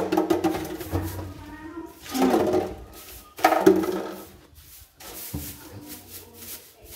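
A stiff coconut-fibre hand brush sweeping in short strokes against a tiled floor and wall edge, with voices talking over the first half.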